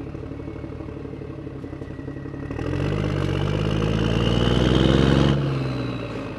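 A motor vehicle's engine running. About two and a half seconds in it revs up, rising in pitch and growing louder, then eases off near the end.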